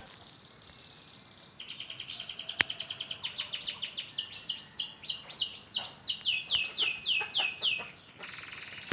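Canary singing: a high, fast trill, then a run of repeated notes that turns into a series of falling whistled sweeps, about three a second, before a fresh trill starts near the end. It is a canary practising its song after the moult. A single sharp click sounds about two and a half seconds in.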